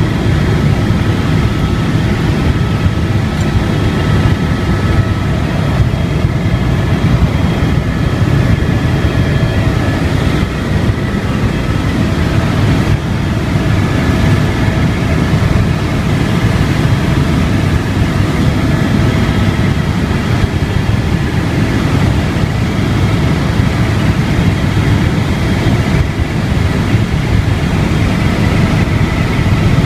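Helicopter in flight, heard from inside the cabin: a loud, steady rotor and engine drone with a few faint, steady whining tones above it.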